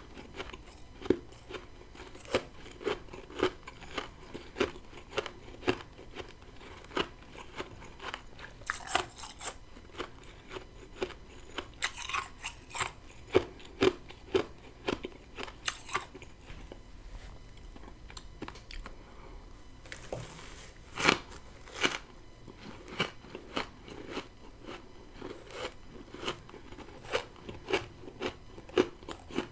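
Close-miked chewing of freezer frost, crunching steadily about once or twice a second, with now and then a longer, brighter crunch as a fresh bite breaks up.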